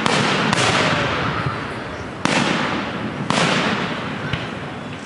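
Fireworks exploding: three sharp bangs, each trailing off in a long fading rumble and crackle.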